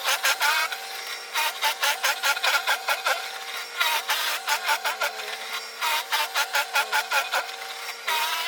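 Snow Joe ION100V cordless snow blower running: a steady electric motor hum, with repeated bursts of rapid scraping and clattering as the auger bites into snow.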